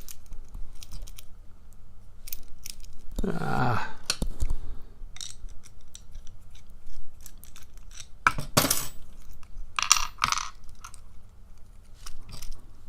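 Scattered small metallic clicks and clinks as an American 5200 padlock is taken apart by hand and its parts are handled, with a louder metal clatter about eight and a half seconds in.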